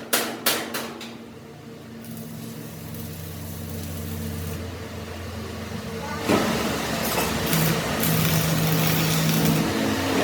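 A few quick hammer blows on metal at the start, about three a second, then a steady machine hum with a low, even tone. The hum grows louder and rougher about six seconds in.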